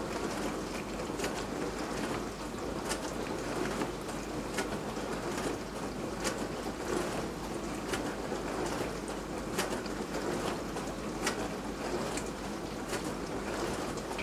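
Beko DWD5410W dishwasher running a wash: a steady rush of spraying water, with a swish or knock about every second and a half or so as the spray arm sweeps round.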